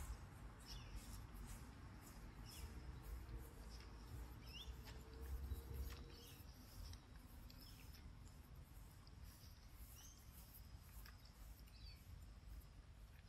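Faint outdoor ambience: small birds chirping now and then, with scattered short clicks over a low rumble.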